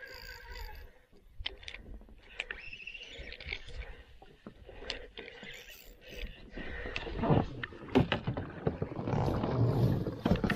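Knocks and rustling handling noise from a small fishing boat being worked toward a pike snagged in weed, growing louder and fuller in the last few seconds.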